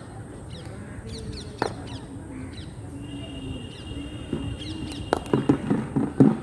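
Birds chirping repeatedly in the background. About five seconds in comes the sharp crack of a cricket bat meeting a thrown ball on a defensive stroke, followed by a run of louder knocks.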